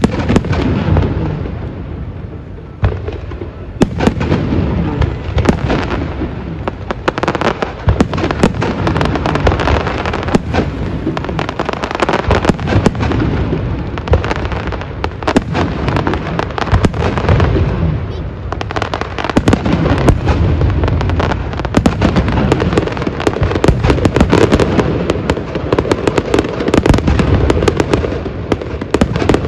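Aerial fireworks display going off continuously: sharp booms, one right at the start and another about four seconds in, followed by dense crackling as shells burst almost without pause through the second half.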